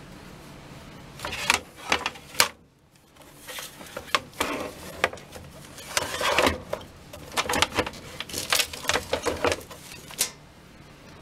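Plastic housing of an electric tankless water heater being handled after opening: scattered clicks, knocks and scrapes as the cover and casing are moved about, in quick clusters with a brief pause about two and a half seconds in.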